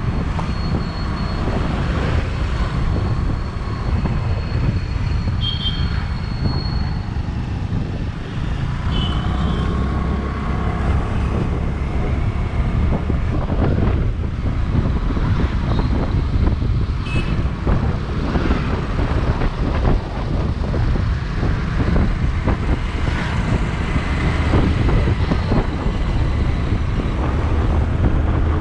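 Steady low rumble of a moving motorcycle: engine, tyre and wind noise on the bike-mounted camera, with traffic around it. A few brief high tones sound here and there.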